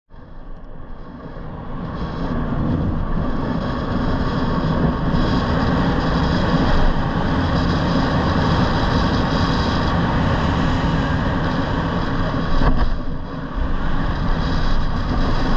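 Wind rushing over an action camera's microphone, with road noise from an electric scooter riding on asphalt. It grows louder over the first couple of seconds, then holds steady, with a brief dip about thirteen seconds in.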